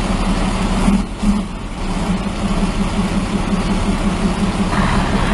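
A heavy vehicle's engine running steadily, with a rapid, even throb; its tone shifts slightly near the end.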